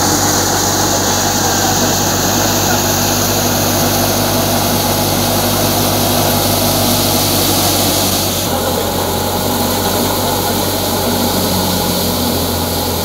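Tractor-driven wheat thresher running at full speed together with the tractor's engine: a loud, continuous mechanical drone with steady hum tones and a hiss of rushing air and chaff. The sound shifts slightly about eight and a half seconds in.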